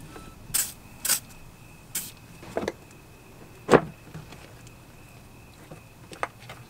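Hollow plastic clicks and knocks from a white plastic windshield washer fluid reservoir being handled as a valve is pushed into it, about half a dozen at uneven spacing, the sharpest knock just past the middle.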